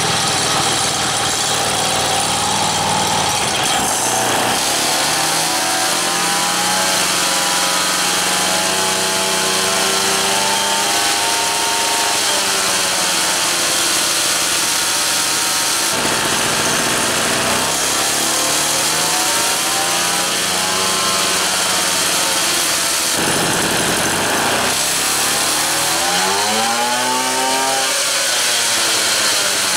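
Motobecane moped's 50 cc single-cylinder two-stroke engine running on its stand, revved up and down three times, the last rev quicker and sharper near the end. The engine is being run at varied speeds to break in its new cylinder kit.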